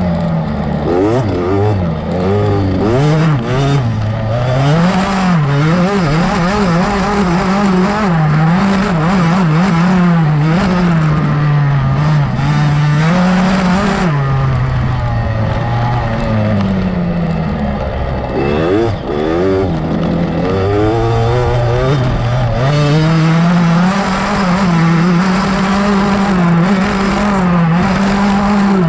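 GasGas MC65's 65cc two-stroke single-cylinder engine at racing speed, revving out and dropping in pitch at each gear change, then climbing again; several sharp drops and rising sweeps.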